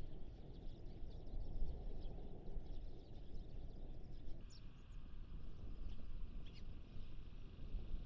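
Eurasian tree sparrows giving a few short, scattered chirps over a steady low outdoor rumble that eases about four seconds in.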